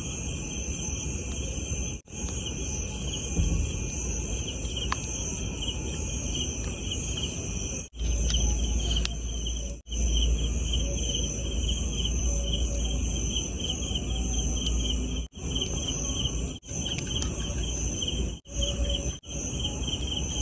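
Crickets chirping in a steady, rapidly pulsing trill, with a low rumble from about eight to fifteen seconds in and several brief dropouts.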